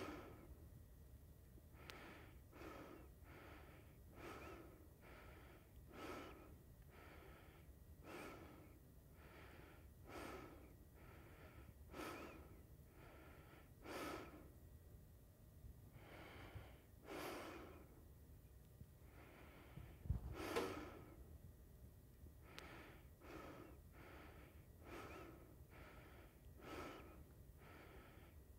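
A person breathing hard in quick, short breaths, about one to two a second, with a soft thump about twenty seconds in.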